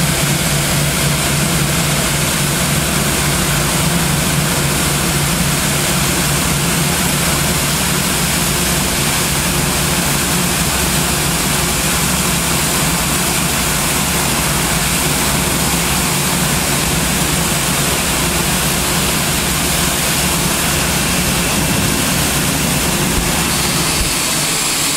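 Boeing 787-8 Dreamliner's twin turbofan engines running at idle thrust as the airliner taxis slowly to its stop: a steady low hum under an even rushing noise. A faint high whine joins near the end.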